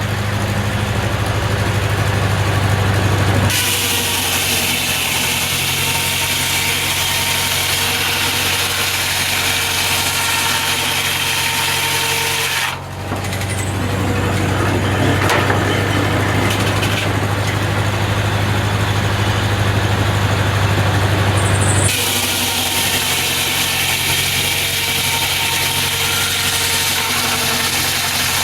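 Engine-driven Corley sawmill running: a steady engine hum that changes in stretches, with a hissing, sawing-like noise from about three seconds in until near the end, and a brief dip about halfway through.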